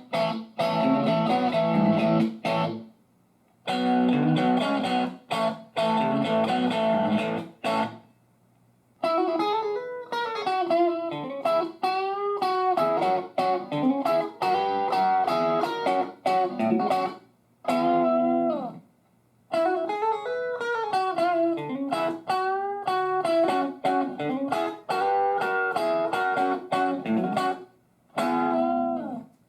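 Electric guitar played through a small Fender tube combo amp: two short bursts of strummed chords, then single-note lead phrases with string bends, broken by brief pauses.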